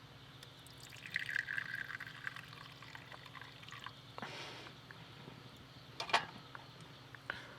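Liquid being poured, ringing for a second or so about a second in, followed by a few light clicks and knocks.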